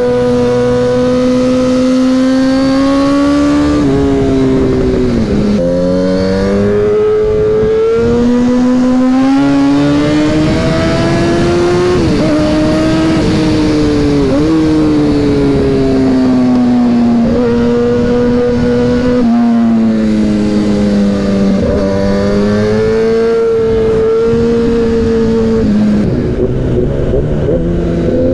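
Kawasaki ZX-10R's inline-four engine pulling at high revs, its pitch climbing and falling with the throttle and dipping sharply at several gear changes. Near the end the revs fall away, then climb steeply again.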